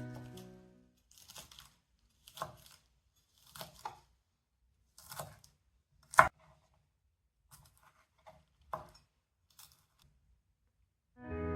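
Food being cut on a cutting board: short separate strokes about once a second, with one sharp knock about six seconds in.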